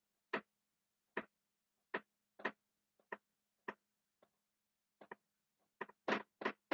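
Marker writing on a whiteboard: a string of short, quiet strokes and taps, irregularly spaced and coming closer together near the end.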